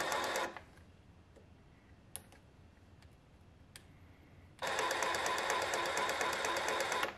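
DeWalt DCS334B 20V cordless brushless jigsaw running free, its blade moving through air rather than cutting: a fast, even buzz of the reciprocating blade. It stops about half a second in, and after about four seconds with only a couple of faint clicks it starts again and runs until just before the end.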